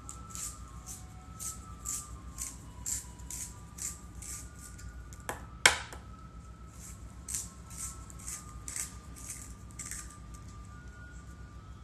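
Brutfuner colored pencil being turned in a small handheld plastic sharpener: the blade shaves the wood in a series of dry, high scraping strokes, about two a second. About halfway through the scraping pauses for two sharp knocks, the second one loud, then resumes.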